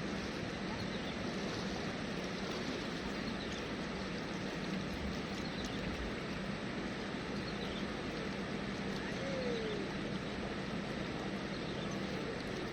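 Steady rushing noise of river water at a weir, unchanging throughout, with a faint low hum underneath. A short falling whistle sounds once about nine seconds in.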